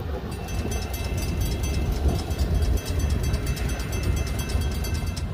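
Florida East Coast Railway freight train rolling past: a heavy, steady low rumble with rapid clicking of wheels on the rails and a faint, steady high whine.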